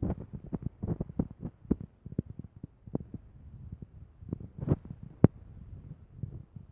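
A pet making a grinding sound: an irregular run of short grating clicks and knocks, a few a second, with the loudest ones about five seconds in.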